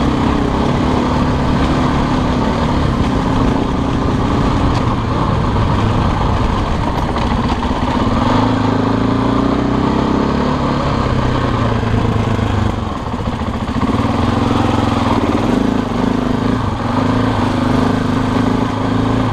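Husqvarna dirt bike engine running at low, shifting revs while riding a trail, easing off briefly about two-thirds of the way through.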